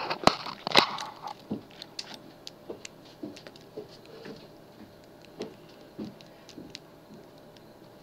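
Two sharp knocks from the camera being handled, then scattered light clicks and taps of lock picks and a tension wrench working a padlock.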